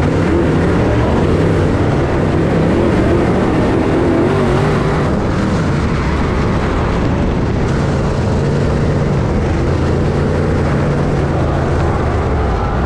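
Dirt modified race car's V8 engine running loud, heard from inside the cockpit. Its pitch wavers up and down for the first few seconds, then holds steadier.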